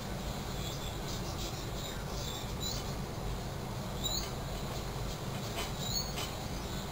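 Large latex balloon squeaking under a person's weight, a few short high chirps as his body shifts on the rubber, over a steady low hum.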